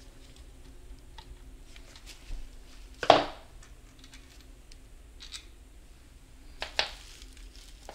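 A flathead screwdriver and metal transmission parts scraping and clinking as a part is pried loose. There are small ticks and two louder scraping clanks, one about three seconds in and one near the end.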